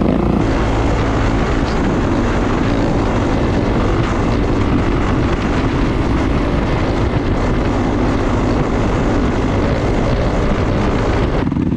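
Dirt bike engine running steadily under way, heard from on board the moving bike, with wind rushing over the microphone. The sound changes character about half a second in and again near the end.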